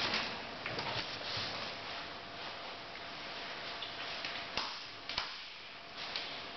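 Person climbing a rock wall in harness: scattered sharp clicks and scrapes from gear and boots on rock, over a steady hiss, with two sharper clicks just after the middle.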